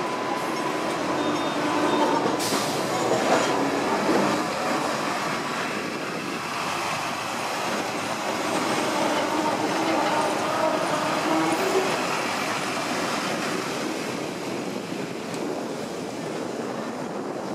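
Hong Kong double-decker electric tram running along street track, heard from aboard: steel wheels rumbling on the rails, with a faint wheel squeal in the first few seconds and a clack about two and a half seconds in.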